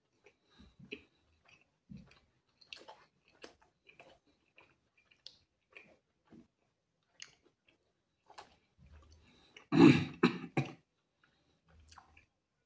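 A person chewing pizza, with soft wet mouth clicks and smacks. About ten seconds in comes a loud bout of throat-clearing coughs in three quick bursts.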